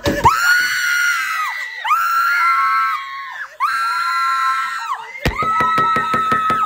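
A person screaming at the top of their voice: three long, high-pitched held screams, then a fourth held cry near the end with a fast, even clicking under it.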